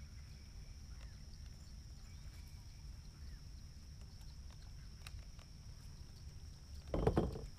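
Quiet open-water ambience: a steady high-pitched insect drone over a low rumble, broken near the end by a short thump.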